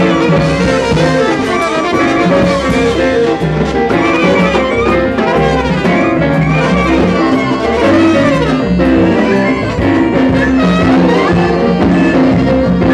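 Live jazz band playing a horn-section passage: trumpet, trombone and saxophone in unison lines over keyboard and drums.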